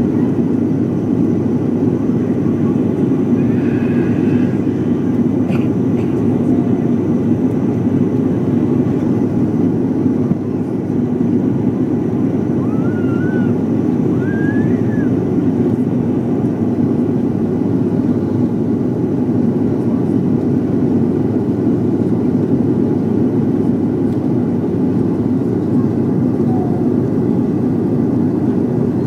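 Steady engine and airflow noise inside an airliner cabin in flight, a loud even rumble with no change in level.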